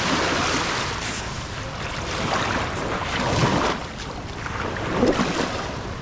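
Small waves breaking and washing up the shore right at the microphone, in several surges that swell and ebb.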